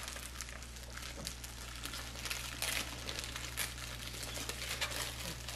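Protective plastic film being peeled off a new graphics card, crinkling and crackling irregularly, over a steady low electrical hum.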